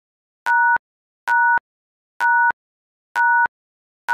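Quiz countdown timer beeping about once a second. Each beep is short and electronic, two steady tones sounding together, and starts and ends with a click.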